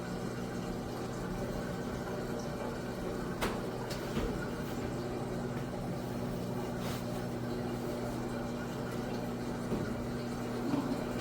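GE commercial coin-operated washer running, a steady hum with a rush of water as it fills, now starting because its timer has been reset. A few sharp clicks sound about three and a half, four and seven seconds in.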